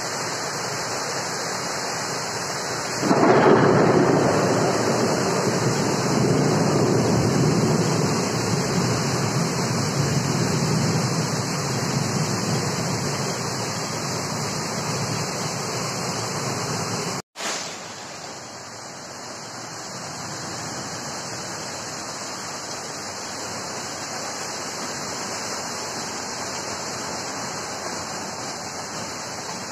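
Heavy rain pouring steadily in a storm. About three seconds in, a roll of thunder swells suddenly and rumbles away over roughly ten seconds. After a brief drop-out, the rain goes on more softly.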